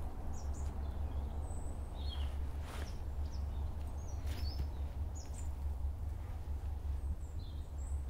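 Outdoor field ambience: small birds chirping now and then over a steady low rumble, with a couple of soft rustles as a person kneels on dry ground.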